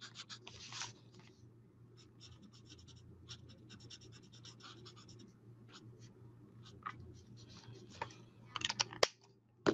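Stampin' Blends alcohol marker scratching across paper in many short, quick strokes as it colours in a stamped image, with a denser flurry of strokes near the end. A single sharp click comes just after it.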